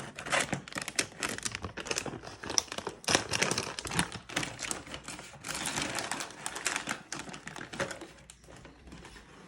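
Plastic cat-treat bag crinkling and rustling as it is handled, a dense run of crackles and clicks that thins out and quietens near the end.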